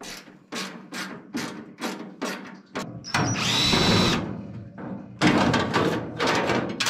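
DeWalt 18V cordless drill driving out a mounting screw, its motor whining for about a second some three seconds in. It is set among runs of sharp clicks, slower at first and then denser near the end.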